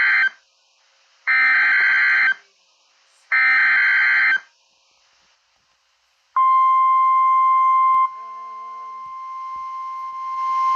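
Emergency Alert System SAME header: short bursts of buzzing data tones, the end of one burst and then two more each about a second long with short silences between. About six seconds in, the steady single-pitch 1050 Hz NOAA Weather Radio alert tone starts; it drops in level about two seconds later, with hiss rising under it near the end. Together they signal the start of a broadcast severe thunderstorm warning.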